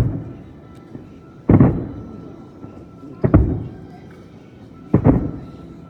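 Aerial firework shells bursting with loud booms: one right at the start, then three more about every one and a half to two seconds, each trailing off in a rumbling echo.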